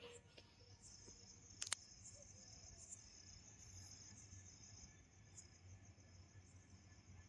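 Faint crickets trilling steadily in the night, with one sharp click about a second and a half in.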